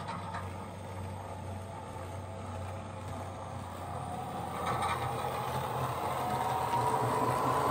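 Model London Underground battery locomotive's LokSound V5 sound decoder playing recordings of the real battery locomotive L44 through the model's speaker: a steady low hum with a few clicks, then from about four seconds in an electric motor whine that rises in pitch and grows louder.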